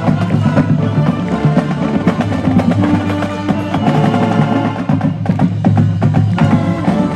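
Marching band playing a piece with drums and percussion driving under held notes.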